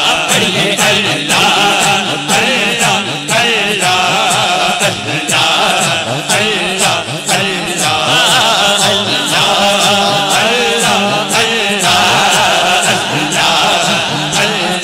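Several men chanting a devotional zikr, a repeated invocation of Allah, into microphones and played loud through a PA system.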